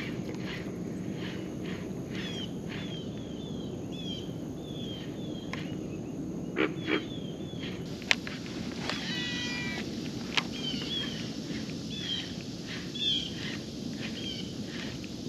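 Animal calls: a run of short, falling chirps repeating about twice a second, with a longer call with several pitches about nine seconds in. A few sharp clicks and a steady low hiss sit under them.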